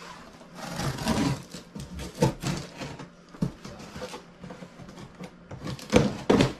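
Handling noises from unpacking: rustling and several sharp knocks as items and packaging are moved, the loudest knocks near the end.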